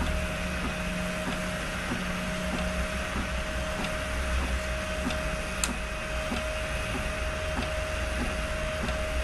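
Printrbot 3D printer running a print: its stepper motors give a steady whine over a low hum, with a few faint ticks.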